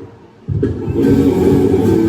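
Worship music starts about half a second in, after a brief quiet, with a full low bass and sustained chords that build up by about a second in.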